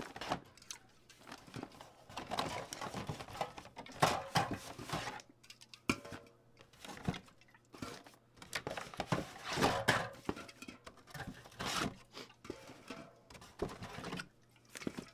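Aluminium drink cans being pulled one at a time out of a cardboard 12-pack box and packed into a soft cooler bag: irregular rustling of cardboard and fabric with short knocks of cans being handled and set down.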